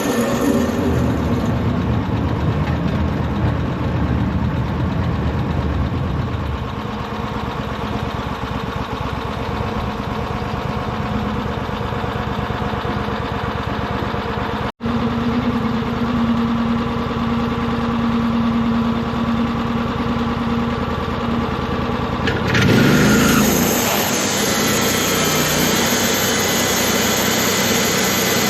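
An engine running steadily, cut off for an instant about halfway through. Near the end its pitch sweeps up and a brighter, hissier sound joins it.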